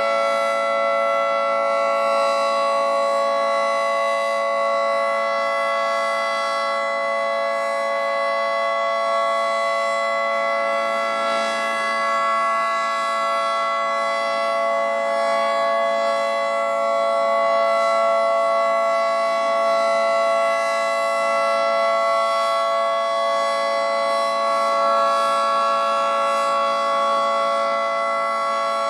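Federal Signal 2T22B dual-tone outdoor warning siren sounding a steady, unchanging two-tone chord at full speed, with small slow swells in loudness. It is the weekly siren test.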